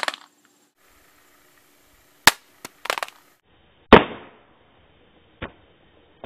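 A smartphone in a Ballistic rugged case hitting asphalt after a drop from ear height: a few sharp clicks, then a loud clattering impact just before four seconds in with a short ringing tail, and one small knock after it.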